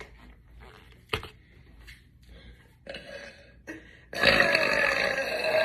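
A woman lets out one long, loud burp lasting about two seconds, starting about four seconds in, after a few faint short clicks.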